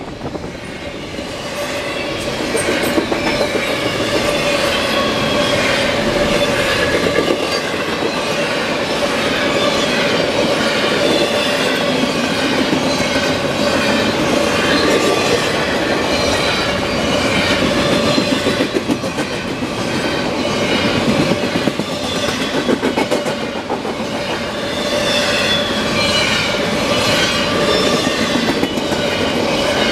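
A CSX intermodal freight train of double-stack container cars and well cars passing at speed: a continuous rumble of steel wheels with rapid clicking over the rail joints, and a steady tone running through it.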